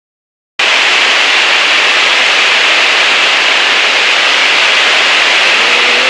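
Heavy rain falling in strong wind: a loud, steady hiss that starts suddenly about half a second in.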